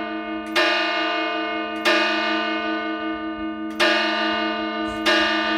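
Cathedral tower bell struck four times at uneven intervals, each strike ringing on into the next.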